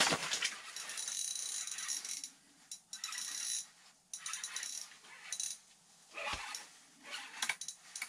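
Spinning fishing reel cranked in short whirring spells as a small northern pike is reeled up through an ice hole, with rustling of nylon clothing and a dull thump about six seconds in.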